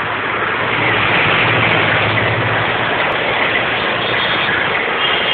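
Busy road traffic: a steady rush of engine and tyre noise with a low engine hum that swells for a couple of seconds around the middle.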